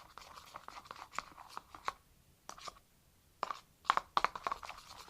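Slime being mixed: a string of short sticky squelches and clicks, pausing briefly midway, then coming thick and fast near the end.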